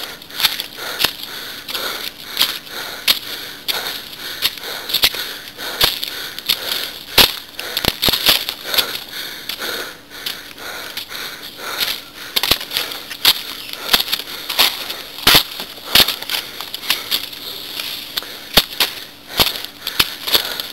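Footsteps crunching on dry leaves and stones on a rocky forest trail, at a steady walking pace, over a steady high hiss.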